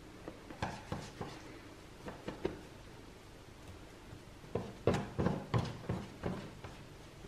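Sticky sourdough worked on a silicone baking mat: a few light taps and scrapes as it is scraped off a spatula, then a run of soft dull pats and sticky smacks as hands press and fold it, loudest about five seconds in.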